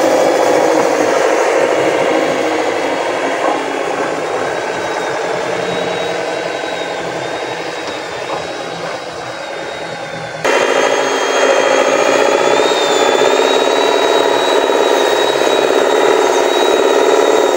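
Motor and gearbox of a radio-controlled model truck running, a steady mechanical drone with a thin high whine over it. About ten and a half seconds in it abruptly gets louder.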